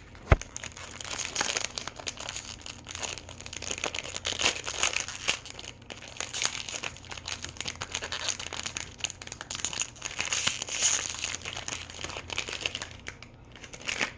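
Crinkly wrapping being crumpled and torn off a small toy box, a dense crackling with a sharp click just after it begins.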